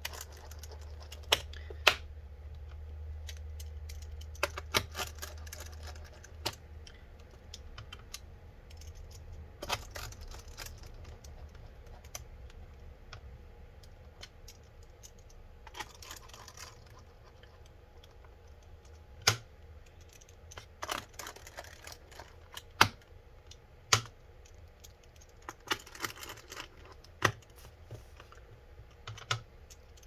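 Small Phillips screws being driven back into a laptop's plastic bottom case with a screwdriver: scattered sharp clicks and taps of the tool and screws on plastic, with a few short scraping stretches.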